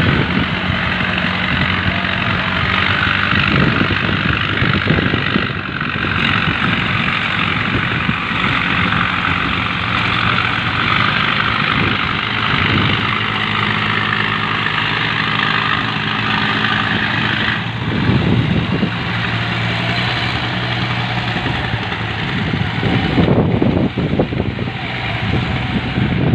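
The four inboard engines of a slerek purse-seine fishing boat running together: a steady, loud engine drone with several low hum tones, which shift in pitch about ten seconds in and again a few seconds later.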